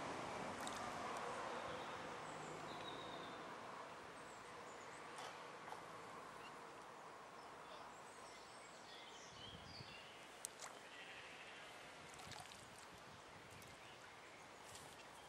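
Quiet outdoor ambience: a steady hiss, a little louder for the first few seconds, with faint bird chirps and a few light clicks.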